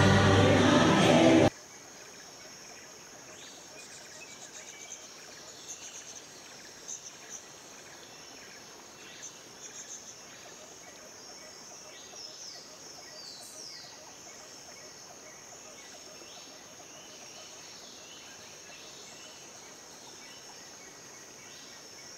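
Music cuts off about a second and a half in, leaving quiet outdoor ambience: a steady high insect chirring with scattered short bird chirps and a few brief whistles.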